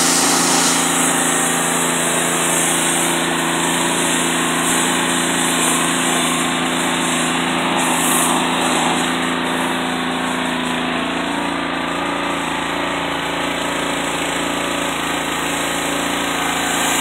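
Pressure washer running steadily, its motor hum under the hiss of the high-pressure spray washing down a car.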